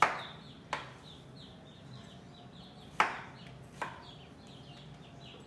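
A kitchen knife chopping through yellow crookneck squash onto a plastic cutting board: four sharp chops, the loudest at the start and about three seconds in. Faint quick high chirping carries on in the background.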